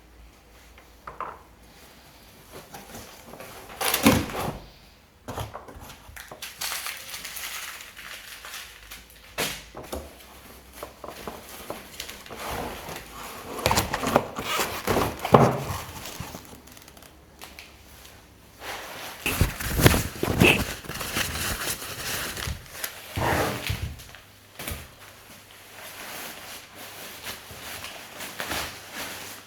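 Unboxing handling sounds: irregular knocks and thumps with rustling of packaging in between.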